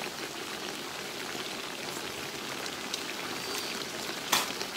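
Close-miked chewing and mouth noises while eating, a faint crackly hiss with scattered small clicks and one sharper click near the end.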